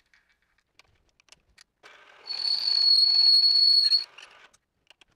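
A 31/64-inch twist drill in a milling machine cutting into a metal plate, starting about two seconds in: a steady cutting noise with a high, steady whistling squeal on top for about two seconds, then it stops. A few small clicks come before and after it.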